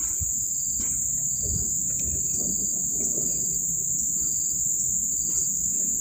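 Steady, high-pitched drone of insects, with a low rustle and a few faint clicks underneath.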